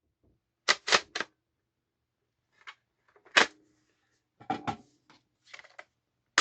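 Steyr AUG's charging handle and bolt being worked by hand to lock the bolt open: a series of sharp metallic clicks and clacks, three quick ones about a second in, then single clacks and small clusters every second or so.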